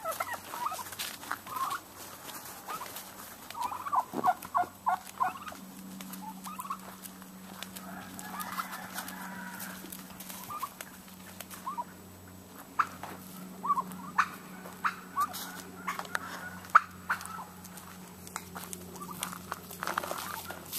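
Domestic turkey calling: short notes, a quick run of several about four seconds in, then single notes scattered through the rest, over scattered clicks and rustles.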